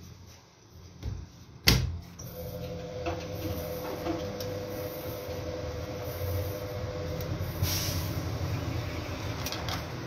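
Siemens Siwamat Plus 573 front-loading washing machine: a sharp click about two seconds in, then the motor drives the drum round with a steady low hum and a whine that stops a few seconds later.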